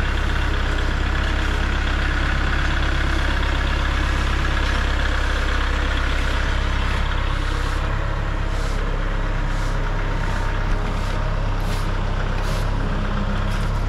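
Tractor engine running steadily, a constant low hum with no revving.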